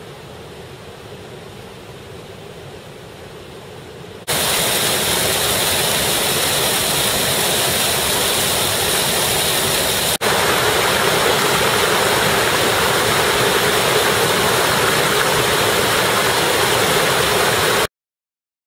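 Water pouring over a curved weir into a sluice channel: a loud, steady rush that starts abruptly about four seconds in, after faint background noise, breaks off for an instant about ten seconds in, and stops suddenly near the end.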